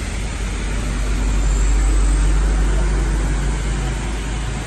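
Pressure pump running with a low steady hum under the hiss of a five-way misting nozzle spraying fine mist. The low hum swells about two seconds in and eases again.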